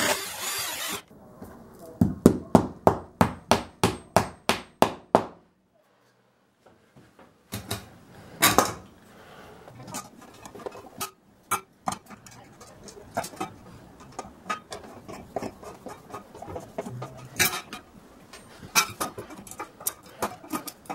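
An electric drill boring into wall tile stops about a second in. A hammer then taps about a dozen times in quick, even succession, about three strikes a second. After a short gap come scattered light metal clicks and clinks as a chrome toilet-roll holder bracket is fitted against the tiles and screwed on.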